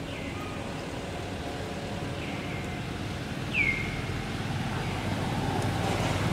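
Steady low engine rumble that grows a little louder towards the end, with three short high chirps falling in pitch; the loudest chirp comes about three and a half seconds in.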